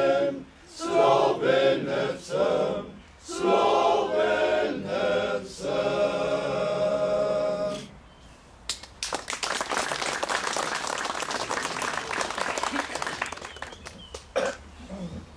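Male choir singing a cappella, ending on a held chord about eight seconds in. After a short pause the audience applauds for about five seconds, dying away.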